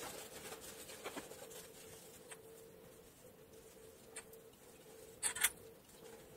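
Fabric lining being pushed and smoothed into a crochet bag: soft rubbing and rustling of cloth and yarn, with a brief louder rustle a little past five seconds in. A faint steady hum runs underneath.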